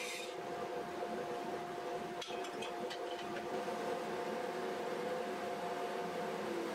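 Rikon bandsaw with a DVR motor running free after a cut, a steady hum made of several tones. A high cutting hiss stops in the first moments, and a few light clicks come a little over two seconds in.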